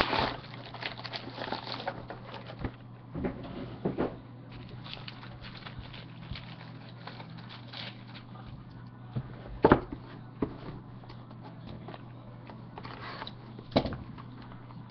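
Trading-card boxes being handled and set down on a desk: scattered taps and rustles of cardboard, with a few sharper knocks about four times, over a steady low hum.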